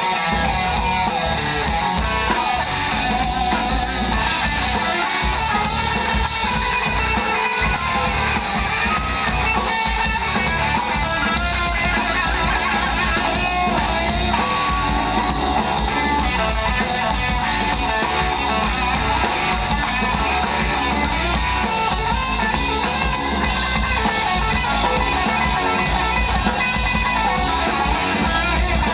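Live rock band playing an instrumental passage: distorted electric guitar, electric bass and drum kit, loud and continuous, with no singing.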